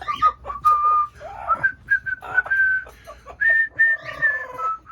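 Short held whistled notes that step up in pitch, mixed with an Amazon parrot's clicks and short raspy calls.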